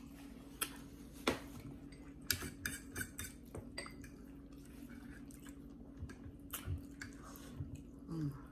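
Metal forks clinking and scraping against plates in scattered, irregular clicks, over a steady low hum.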